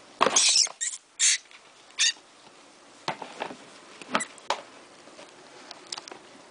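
Feeder rat squealing as a ball python strikes and constricts it: four short, loud, high squeals in the first two seconds. Then come scattered light knocks and scuffs as the two move against the plastic tub.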